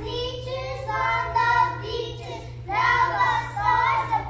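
Young children singing together, in phrases of about a second with short breaks, over a steady low hum.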